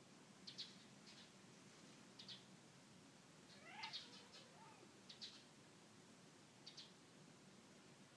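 A tailless black-and-white Manx cat gives a short, rising meow about three and a half seconds in, calling at birds outside. Small birds chirp in several short, high bursts throughout, all of it faint.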